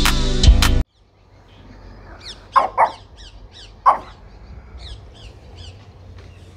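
Background music cuts off about a second in. A Pekingese then barks twice in quick succession about two and a half seconds in and once more near four seconds, over birds chirping repeatedly.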